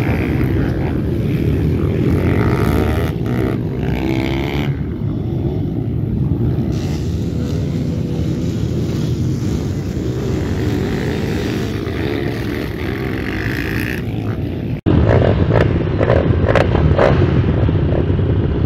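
Four-stroke single-cylinder pit bike engines running as the bikes ride a dirt track, heard as a dense low rumble. About 15 s in the sound cuts abruptly to several pit bike engines idling and being revved close by.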